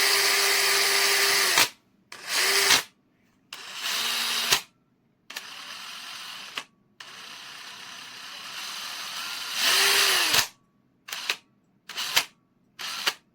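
BLACK+DECKER 18V brushless drill motor running at a steady full speed, then released and winding down. It is followed by a series of separate trigger pulls: short bursts, one at a lower speed, a longer run that builds up to full speed and winds down, and several quick blips near the end.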